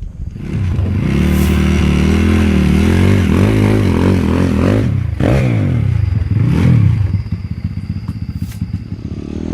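Piranha 140cc four-stroke single-cylinder pit bike engine revving hard as the bike is ridden, its pitch rising and falling several times through the throttle and gears, then dropping to a lower, uneven note off the throttle near the end.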